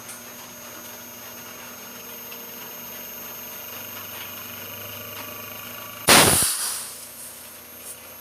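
AUX split inverter air conditioner outdoor unit running after repair, its compressor and fan motor giving a steady hum with several fixed tones. About six seconds in, one very loud, sudden burst of noise cuts across it and dies away within about a second.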